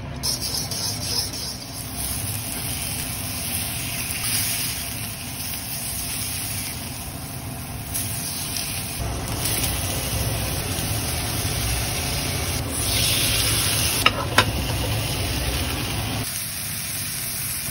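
Pork steaks sizzling on a hot grill pan and sizzling plate, a steady hiss over a low rumble. Two sharp clinks of the serving spoon on the plate about fourteen seconds in.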